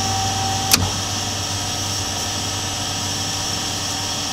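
Industrial horizontal bandsaw running with a steady machine hum. About a second in, a relay or contactor clicks sharply and a steady whine cuts off at the same moment: the chip conveyor switching off in its automatic cycle.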